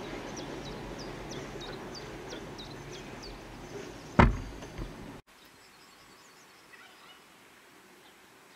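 Freight train of car-carrier wagons rolling away, a low rumble slowly fading, with a run of short high falling chirps about three a second. About four seconds in comes a sharp, loud knock, then the sound cuts to quiet outdoor ambience with faint high calls.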